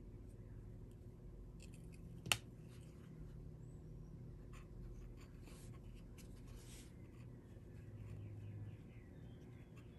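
Faint hand-handling noise as a glass cane stem is held against a glass flower piece on a paper towel: light rubbing and rustling over a low steady hum, with one sharp click about two seconds in.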